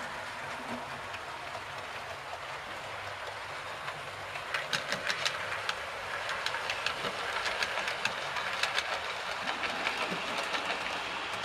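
Model railway train, an LMS tank locomotive with maroon coaches, running on the layout with a steady whirr. From about four and a half seconds in comes a quick run of sharp clicks as the wheels cross the rail joints and points.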